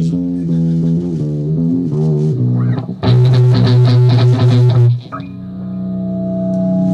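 Heavy rock band recording: bass guitar and electric guitar playing a slow riff. About three seconds in it turns louder and fuller. It breaks off suddenly about five seconds in, leaving a sustained chord ringing out.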